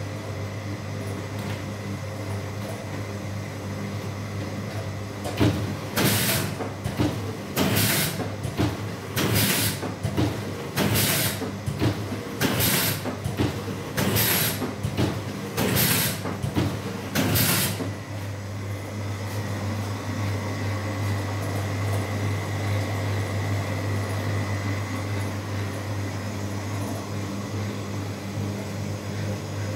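Lara Pack Junior film-wrapping machine running with a steady low hum. From about six seconds in it cycles eight times, one short loud burst about every second and a half as each item is wrapped, then it runs on with only the hum.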